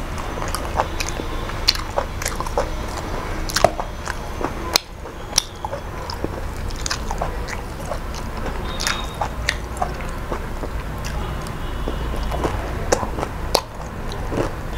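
Close-miked eating: a person chewing and biting a mouthful of chicken and rice, with irregular sharp wet clicks and smacks.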